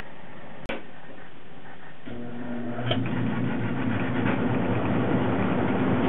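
Belt-driven furnace blower starting up about two seconds in and running steadily, a low motor hum under a rush of moving air, after a sharp click near the start. Its worn, split fan belt has just been tightened, and it is running better and moving a lot more air.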